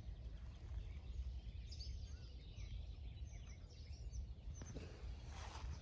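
Faint dawn ambience by a lake: distant birds chirping softly over a steady low rumble, with a short burst of noise near the end.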